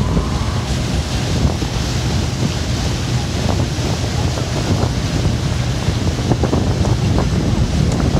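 Wind buffeting the microphone: a loud, steady rumble with hiss.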